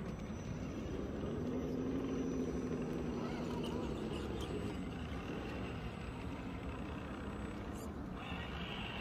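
Electric motor and gear drive of an RC crawler whining, the pitch rising and falling with the throttle. A higher-pitched tone joins in during the last second.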